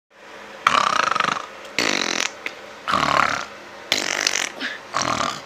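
A run of about five short fart noises, each under a second long, the first and longest with a rapid flutter.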